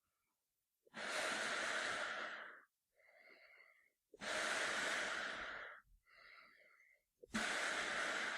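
A man breathing through a gas mask, starting about a second in: three long, loud breaths of about a second and a half each, alternating with two shorter, quieter breaths.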